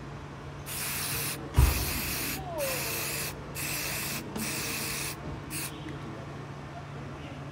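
An aerosol can of air-filter oil sprays onto a cotton-gauze K&N panel air filter in about six short hisses, each under a second, then stops: the oiling step after the filter is cleaned. A single thump comes about one and a half seconds in.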